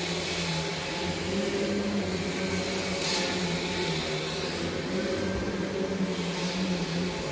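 Vacuum cleaner running steadily, a constant drone with a low hum.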